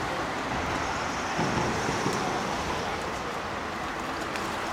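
Steady noise of road traffic, an even rushing hum.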